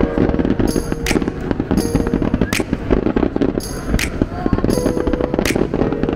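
Aerial fireworks bursting in a rapid barrage, a sharp bang roughly every half second over a dense patter of smaller pops, with music playing underneath.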